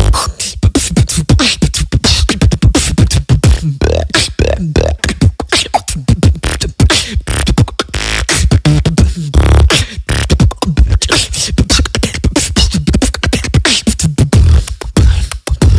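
Solo beatboxing freestyle into a close microphone: a fast, dense run of mouth-made drum sounds over deep bass hits, with a few sliding pitched vocal sounds about four and nine seconds in.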